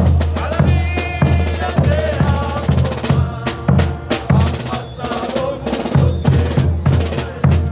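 Bolivian brass band playing a morenada: a brass melody over a regular pounding beat of bass drum and low brass, with cymbal and snare strokes.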